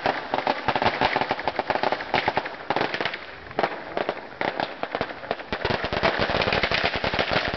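Firecrackers going off in a rapid, irregular run of sharp pops, many a second, with a brief thinning about three and a half seconds in before they pick up again.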